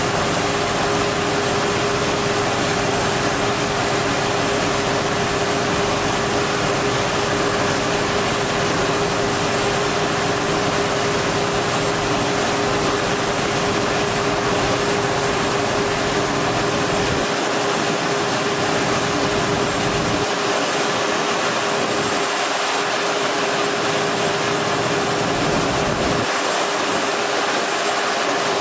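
Claas Lexion combine harvester running while its unloading auger pours grain into a trailer: a steady machine noise with a constant hum.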